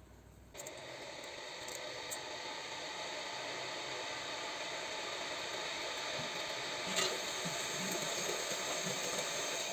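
A steady hiss of water that starts about half a second in and grows slightly louder, with a light knock about seven seconds in.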